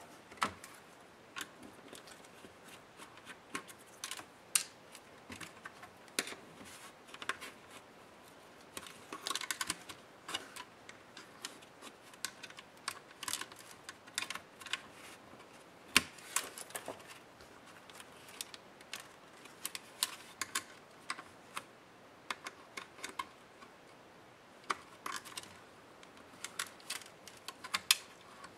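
Irregular light clicks and taps of a small screwdriver and fingers working on a laptop's case, with a few sharper clicks among them.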